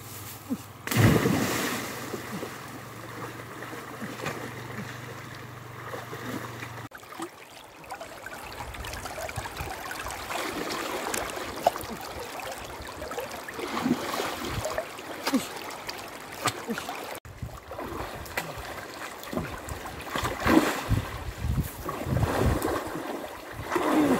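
River water splashing as a man jumps in and wades through a shallow river, lunging with a spear after fish: a big splash about a second in, steady wading and running water in the middle, and repeated splashes near the end. The sound changes abruptly twice where the shots change.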